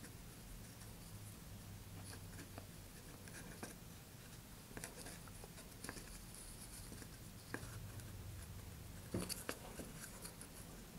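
Faint rustling and light scratching of a shock cord being wrapped and tied around a paper model-rocket motor tube, with a few small ticks from handling.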